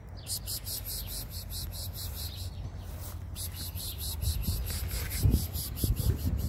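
Insects chirping in a fast, even pulse of high-pitched chirps, about six a second, with a short break about halfway. A steady low rumble runs underneath, and a few dull thumps come near the end.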